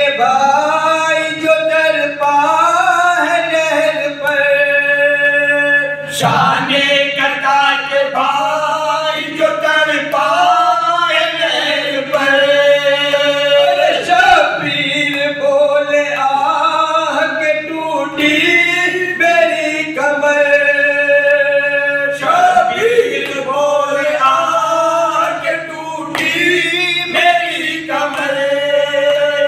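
Group of men singing a matami noha, an Urdu lament for Imam Husain, unaccompanied, in held and gliding phrases.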